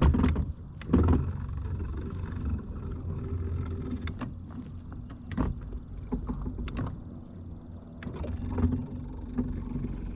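Steady low hum of a boat's motor, with scattered sharp knocks on the boat and faint, high, repeated chirps in the background.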